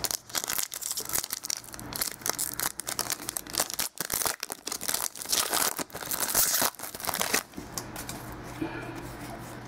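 Foil wrapper of a 2013 Elite football card pack being torn open and crinkled by hand: a dense run of crackling that dies down about three quarters of the way through.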